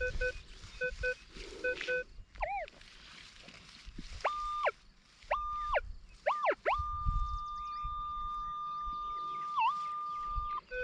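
Minelab Equinox 800 metal detector giving target tones: a few short beeps, then several tones that swoop up, hold and drop, settling into one long steady high tone held for about four seconds with a brief dip near the end. This is the detector sounding off over a solid buried metal target.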